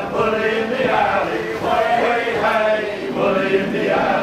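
A group of men singing together in long, held notes, chant-like, in the manner of a male choir.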